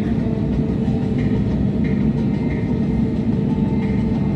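Steady low rumble of an airliner cabin while the plane taxis, with its jet engines at idle.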